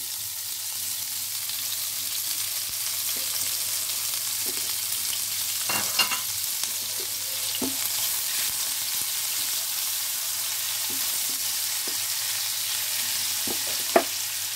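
Chopped onions sizzling steadily in hot mustard oil in a nonstick frying pan, stirred with a spatula that knocks against the pan now and then, most sharply about six seconds in and again near the end.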